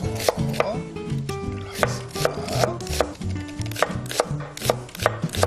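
Chef's knife slicing an onion into thin strips on a wooden cutting board: a steady run of crisp knife strikes against the board, about two to three a second.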